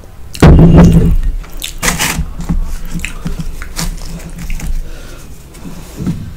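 Close-up eating sounds: a loud, low mouth sound about half a second in, just after a swig of lassi. Then chewing, with crisp crackles and small clicks as a missi roti is torn apart by hand.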